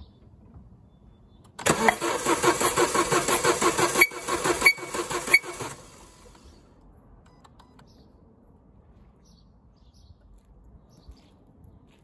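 Renault Scenic's four-cylinder petrol engine cranked over on the starter motor, with its ignition coils removed so it does not fire, for a compression test on cylinder 4. It makes an even, rhythmic cranking sound that starts about a second and a half in and stops about four seconds later. The gauge then reads a healthy 150.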